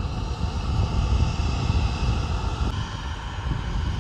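Vintage light aircraft's piston engine running, a steady low rumble. The sound changes abruptly about two-thirds of the way through.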